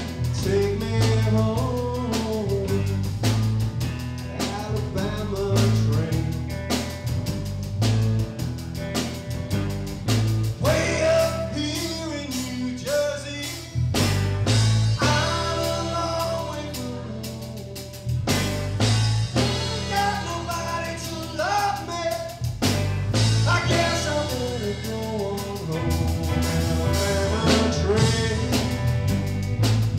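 Live blues band playing: a male lead vocal sung over electric guitar, a pulsing bass line and drum kit.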